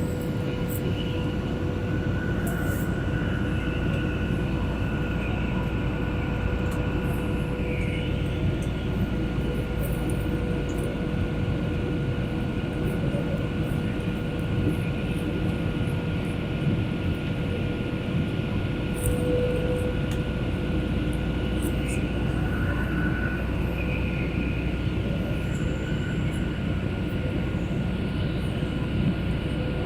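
Steady airliner cabin noise in flight: a constant low rumble of engines and airflow with a steady hum over it.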